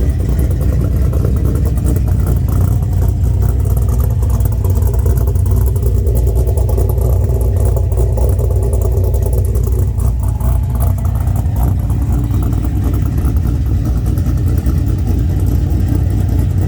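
Pontiac Trans Am V8 engine running steadily and loud, its lowest notes strongest.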